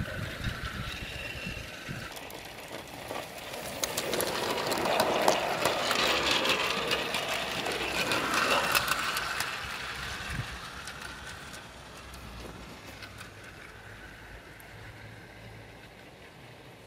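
An O gauge model goods train of four-wheeled wagons rolls along garden track with a rattle and many sharp clicks from the wheels. It grows louder a few seconds in as the wagons pass close by, then fades away.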